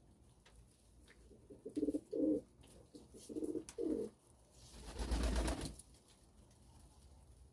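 Pigeon cooing: two low, double-note coos about two seconds apart, followed by a second-long burst of rustling noise.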